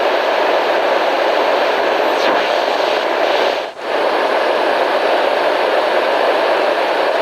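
Steady white-noise ambience track, an even hiss centred in the middle range, which dips sharply for a moment about three and a half seconds in and then resumes.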